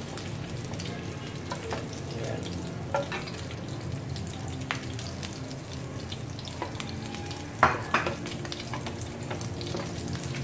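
Frying sizzle in a non-stick frying pan as two wooden spatulas scrape and stir the browned beef bits left in it, with a few sharp taps of wood on the pan, the loudest about three quarters of the way through.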